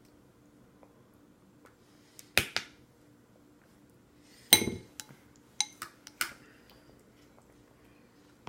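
Yellow plastic baby spoon tapping and clinking against a plastic suction bowl: scattered sharp knocks. The loudest comes about halfway through and rings briefly, followed by a quick run of lighter taps.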